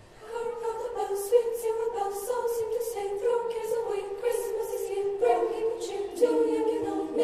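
Girls' choir singing in several parts, held notes in harmony with crisp consonants; the singing fades in over the first half second.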